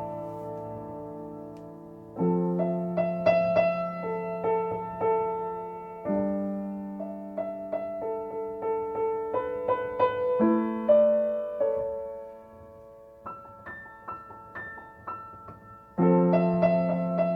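Solo piano, tuned so that C is 528 Hz, playing slow, calm music. Sustained chords are struck about every four seconds and left to ring and fade under a sparse melody line.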